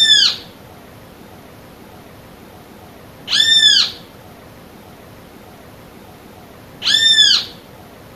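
Great kiskadee (bem-te-vi) calling: a single clear note that rises and falls, repeated about every three and a half seconds, three times.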